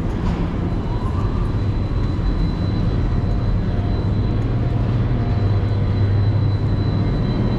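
Steady low mechanical hum of the dam's underground power-plant machinery, with a faint high whine above it.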